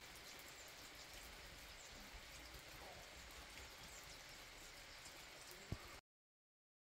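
Light spring rain falling, a faint steady patter with scattered tiny drop ticks. A single low thump about five and a half seconds in, then the sound cuts off suddenly.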